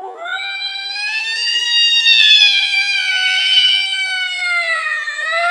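An angry cat's long, drawn-out yowl: one continuous call whose pitch wavers slightly and rises near the end.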